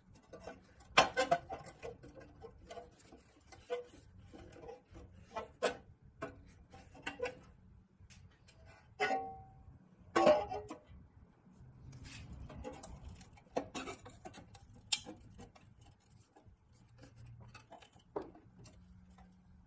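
Flat-blade screwdriver prying and scraping at the rusty pressed-steel body of an old Tonka toy truck as it is levered off the chassis. Irregular metallic clicks, scrapes and short ringing twangs, with the sharpest clanks about a second in, around ten seconds in, and near fifteen seconds.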